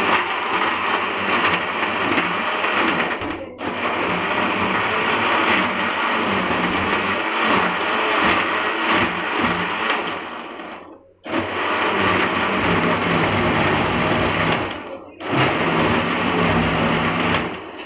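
Sonashi countertop blender running loaded, grinding chopped onion, ginger, garlic and green chillies with a little water into a coarse paste. It runs in four bursts, stopping briefly three times in between.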